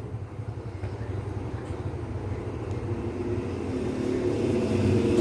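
Engine hum of a motor vehicle, growing steadily louder, with a pitched drone coming up about three seconds in.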